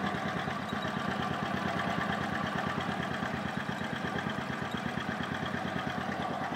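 A 150 cc scooter engine idling steadily with a fast, even pulse. It is run to listen for abnormal noise from the transmission (belt drive).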